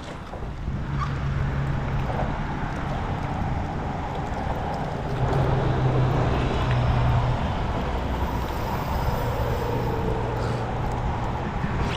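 Steady low engine drone that swells in the middle, over a wash of wind and water noise.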